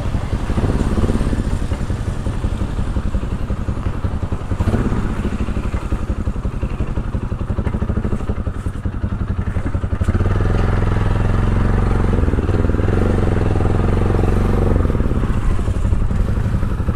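Motorcycle engine running while riding, with road and wind noise. The engine note is rough and pulsing at first, and about ten seconds in it settles into a steadier, even hum.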